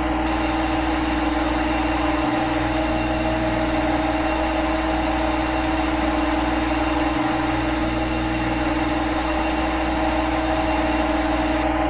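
Steady machine hum of a CNC simulator's machining sound effect, the spindle running with a fixed pitch. The low part drops out for an instant about every five seconds, as a looped recording does.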